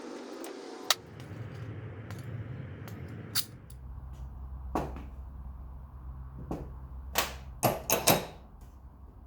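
Scattered sharp clicks and knocks of metal engine parts and hand tools being handled, several of them close together near the end, over a steady low hum.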